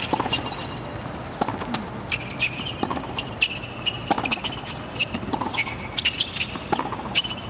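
Tennis rally on a hard court: racket strikes on the ball about every second and a half, with short sneaker squeaks on the court surface between shots.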